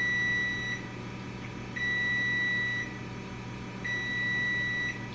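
Oven timer beeping: long, steady high beeps about a second each, repeating about every two seconds, signalling that the set baking time is up.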